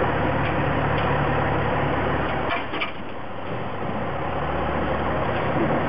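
A large engine running steadily. It drops off briefly about two and a half seconds in, then picks up again.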